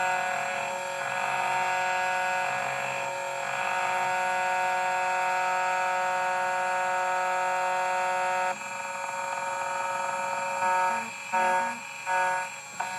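CNC key cutting machine milling a Hyundai key blank: a steady whine from its motors and cutter that drops off about two-thirds of the way through, followed by three short whirring bursts as the machine moves between cuts.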